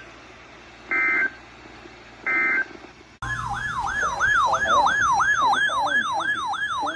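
EAS SAME end-of-message data bursts: two short, harsh digital chirps about a second and a half apart, closing the alert. About three seconds in, a loud siren-like warble starts, sweeping up and down about three times a second, announcing the next alert.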